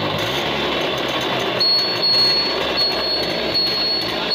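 TVS XL Super moped's added indicator buzzer beeping as the turn-signal switch is on: a high, thin beep comes on about a second and a half in and sounds in stretches of about a second with short breaks. Under it the moped's small engine is running.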